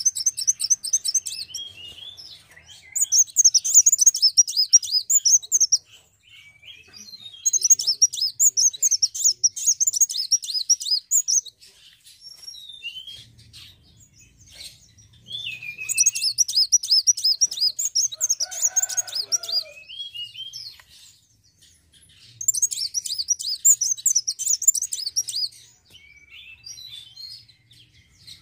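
Kolibri wulung sunbird singing: five bursts of fast, high, trilled song, each a few seconds long, separated by short, lower chirps.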